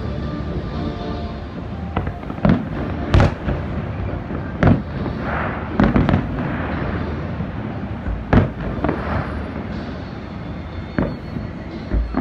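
Fireworks going off: about eight sharp bangs at uneven gaps of half a second to a few seconds, each trailing off in a short rumble.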